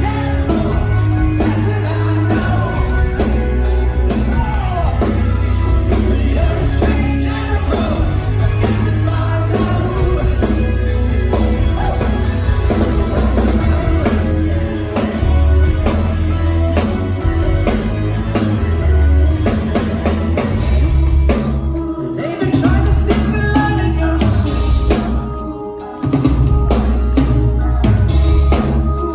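Live rock band playing a song with singing, a heavy bass line and drums, loud, with short drops in loudness about two-thirds of the way through and again near the end.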